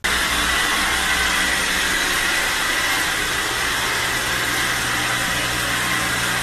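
Robot vacuum cleaner running: a steady hiss with a low hum underneath.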